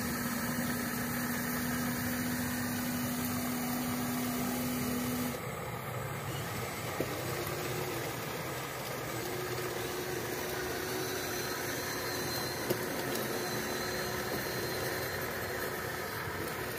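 Radio-controlled scale Cat 336D excavator working its arm and bucket: a steady mechanical hum over a constant hiss. The hum's tone cuts out about five seconds in and comes back slightly higher a couple of seconds later, with a couple of faint clicks.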